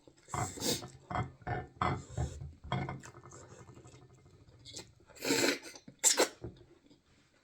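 Close-up mouth sounds of someone eating fufu: a quick run of short wet smacks and chews, then two louder breathy bursts a little under a second apart.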